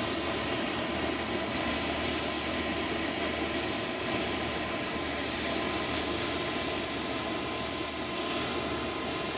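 CH-53K King Stallion helicopter's turbine engines running steadily: a constant high whine over a dense rushing noise.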